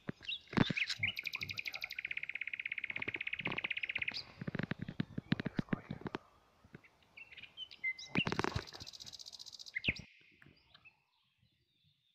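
A songbird singing a rapid, even trill for about three seconds, then a second, higher-pitched trill a few seconds later. Between them come crunching steps and rustling in dry forest leaf litter.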